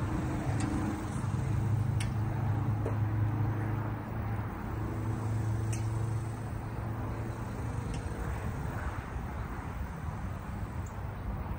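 An engine running steadily with a low hum that swells and eases a little, with a few light clicks over it.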